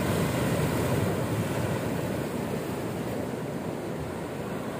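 Sea waves breaking on a rocky shore and surf washing over and around the rocks, a steady rush that is loudest in the first second or so as a wave splashes on the rocks.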